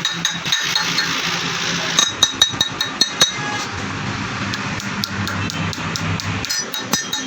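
Hammer tapping on metal: sharp strikes that each ring briefly and metallically, in a quick cluster about two to three seconds in and a few more near the end, over a steady low hum.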